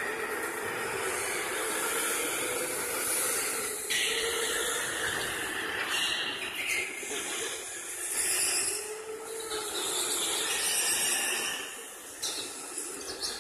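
Indoor electric go-karts running laps: a steady hiss of tyres and motors, with a motor whine that rises and falls as a kart goes by.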